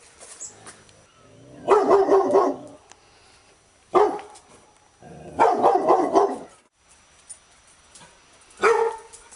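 Labrador retriever barking in bouts: a quick run of barks about two seconds in, a single bark, another quick run, and a last single bark near the end.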